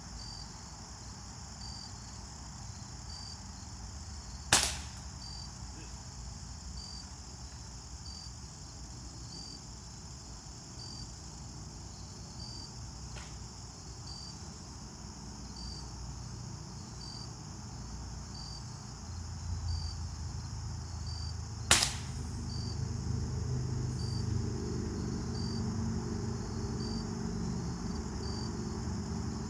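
Two sharp pellet-gun shots, one about four and a half seconds in and the other about seventeen seconds later, over steady cricket chirring. A low rumble builds in the second half.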